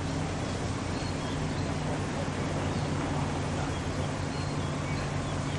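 Steady outdoor background: a low hum and even hiss, with a few faint, short, high chirps.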